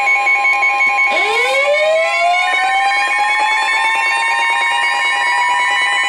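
Emergency Alert System alert tone: steady two-tone sound with a pulsing beep layered in. About a second in, a siren starts up underneath, rising in pitch and levelling off into a steady wail.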